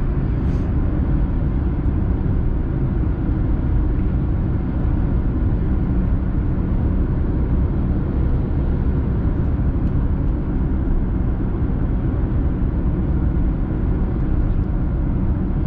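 Steady road noise inside a car driving on a highway: a low, even drone of tyres and engine.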